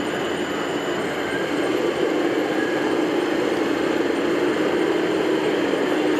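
Radio-controlled 1:16 scale military vehicle running: a steady mechanical rumble with faint high whining tones from its drive, getting slightly louder about two seconds in.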